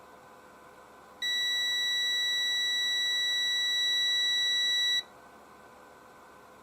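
Digital multimeter's continuity beeper sounding during a continuity check on a hairdryer capacitor: one steady high-pitched beep of about four seconds that starts a second in and cuts off suddenly.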